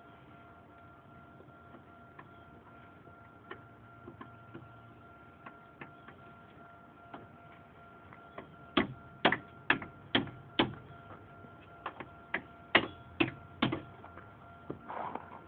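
Hammer blows during a CV axle replacement: a run of about a dozen sharp knocks, roughly two a second, after a few lighter scattered clicks, over a faint steady hum.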